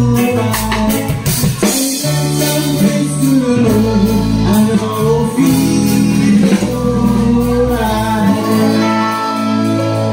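Live band playing: electric keyboard chords, electric bass holding long low notes, and a drum kit with cymbal hits in the first couple of seconds.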